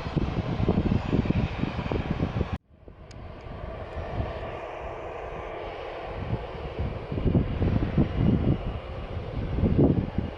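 Jet airliner engines running, a steady rushing noise, with wind buffeting the microphone. About two and a half seconds in the sound cuts out abruptly, then fades back in and builds up again.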